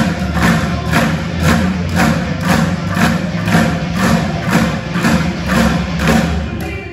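A group drumming together on upturned plastic buckets with drumsticks, a steady beat of about two strikes a second; the beat drops out briefly near the end.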